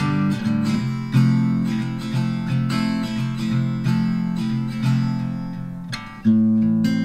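Background music: strummed acoustic guitar, changing chords every half second or so.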